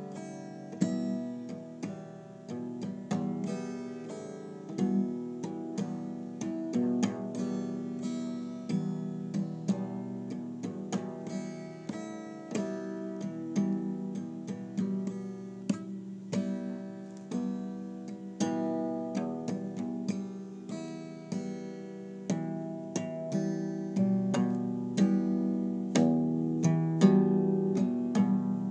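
Solo instrumental music on a plucked string instrument, chords picked and strummed with frequent sharp note attacks and no singing.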